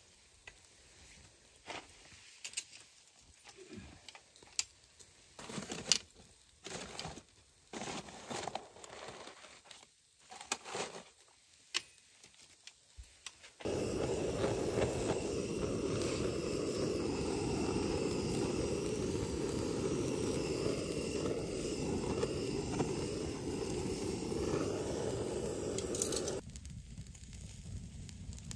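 Scattered crackles and clicks, then about halfway through a handheld butane torch comes on with a loud steady hiss as its flame sears meat on a wire grill over hot coals. It cuts off suddenly near the end.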